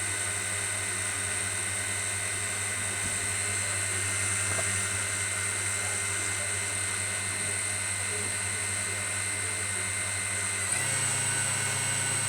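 DJI Mavic Mini drone's four propeller motors spinning steadily, a high whine over a low hum; about eleven seconds in the pitch steps up slightly.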